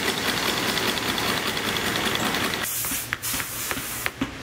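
Boot outsole stitching machine running steadily with a fast, even rhythm as it sews a lugged sole to the boot. It stops about two and a half seconds in, followed by a short hiss and a few light clicks.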